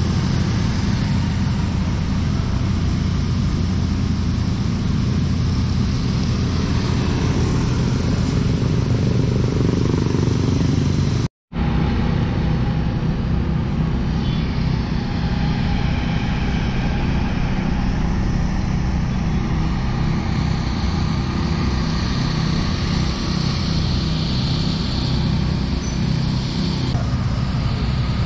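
Town street ambience with motor traffic: engines running and vehicles passing in a steady, low rumbling wash. The sound drops out for an instant about eleven seconds in at an edit cut, then a similar street-and-market ambience carries on.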